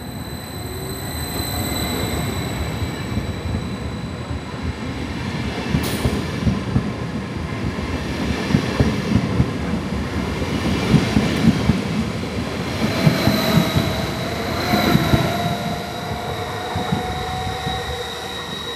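Westbahn Stadler KISS double-deck electric multiple unit pulling out past the platform: its traction motors whine, rising in pitch as it gathers speed, over a rumble with rapid clatter from the wheels on the rails, loudest in the middle as the cars pass close by.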